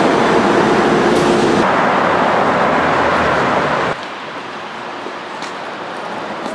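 Loud, steady rumble of city transit noise, with a couple of steady hum tones in the first second and a half. About four seconds in it cuts off sharply to quieter street noise with a few faint footsteps.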